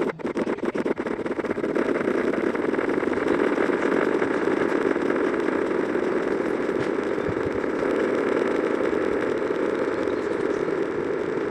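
A dense, steady droning din of many overlapping video soundtracks playing at once, with a rapid stutter in the first second or so.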